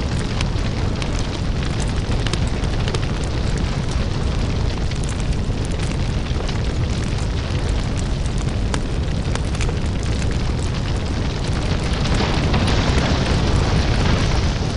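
Crackling lava-fire ambience: a deep, steady rumble under dense crackles and pops, with a hissing rush that swells about twelve seconds in.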